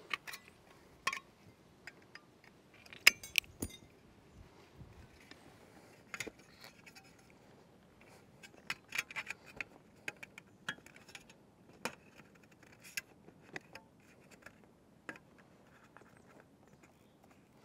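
Aviation tin snips cutting sheet-metal Z-bar, with sharp snipping clicks loudest about three seconds in, followed by scattered light metallic clinks and scrapes as the cut sheet-metal pieces are fitted together around the pipe.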